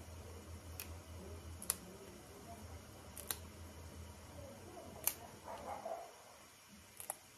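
Fresh leafy green stems snapped by hand, five sharp crisp snaps spaced a second or more apart, with a little rustling of the leaves. A low steady hum runs underneath and stops about six seconds in.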